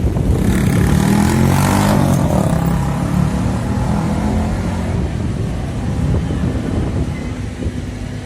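A London bus's diesel engine running close by, loudest in the first few seconds and then fading as it moves off, with a short hiss about a second in. Wind buffets the microphone throughout.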